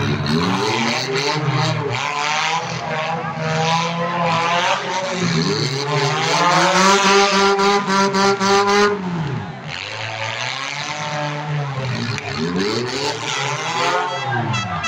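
Demolition derby compact cars' engines revving hard, their pitch sweeping up and down again and again; one engine is held at high revs for about three seconds in the middle before dropping. Scattered knocks come through the engine noise.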